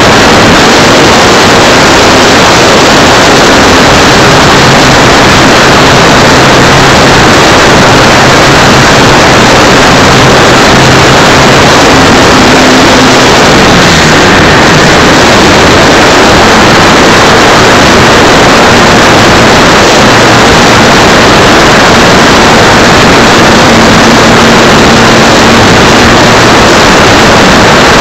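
Strong wind buffeting the microphone, a loud, steady, near-clipped rush with a faint low engine hum beneath it that shifts pitch slightly about halfway through.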